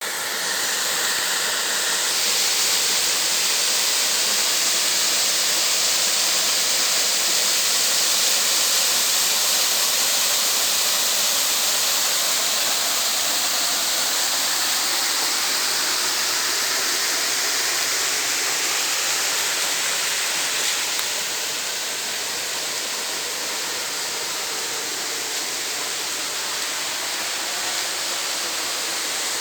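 Waterfall: a steady rush of falling water, growing a little quieter about two-thirds of the way through.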